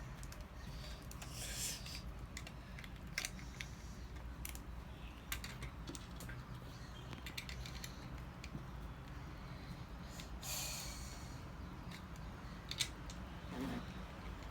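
Plastic Lego bricks being handled and pressed together: scattered small clicks and rattles with a couple of brief rustles, over a steady low room hum.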